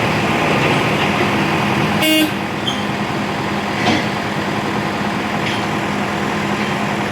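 Heavy vehicle engine running steadily, with one short horn toot about two seconds in.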